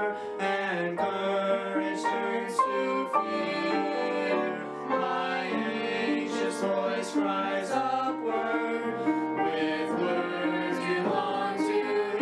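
A small mixed group of five voices, a man, teenage boys and girls, singing a sacred song together in parts, with held notes.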